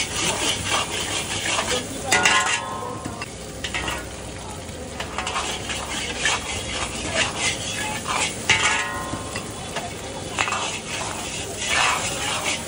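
Eggs sizzling in hot oil in a large wok as a metal ladle stirs and scrambles them, scraping and knocking against the pan. A few times the ladle strikes the wok with a ringing metallic clang.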